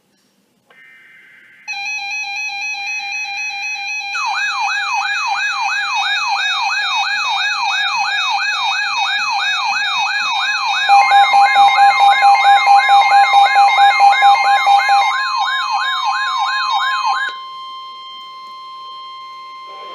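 Emergency Alert System weather alert tones: short buzzy bursts of SAME data, then a loud siren-like alarm sweeping up and down about twice a second over a steady tone. A steady NOAA Weather Radio alert tone near 1 kHz joins partway through; the sweeping stops near the end, leaving that tone alone and quieter.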